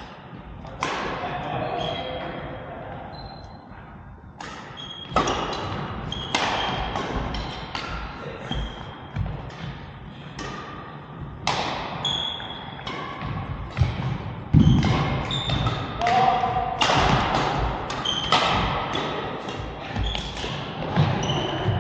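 Badminton doubles rally: irregular sharp racket hits on the shuttlecock mixed with thuds of players' feet on the court.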